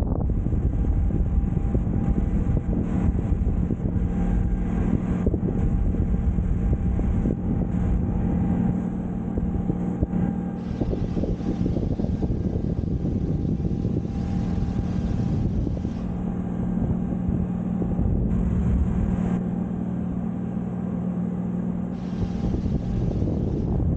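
Wind buffeting and rumbling on a camera's microphone while parasailing high above the sea, with a steady low hum running underneath.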